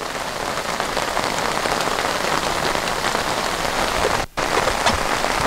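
Heavy driving rain falling on the lake surface: a steady hiss of drops. The sound briefly cuts out about four seconds in.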